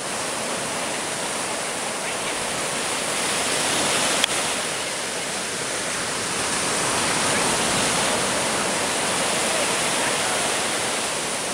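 Breaking surf and foaming whitewater washing through the shallows, a steady rushing hiss, with one sharp click about four seconds in.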